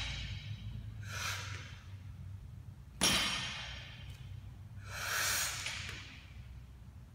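Light barbell with bumper plates dropping back onto the floor once, about three seconds in: a sharp knock with a brief ring as the plates land after popping off the ground during a deadlift wedge. The lifter breathes out audibly about a second in and again around five seconds.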